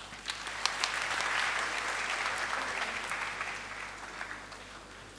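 Audience applauding, swelling within the first second and fading out over the last two seconds.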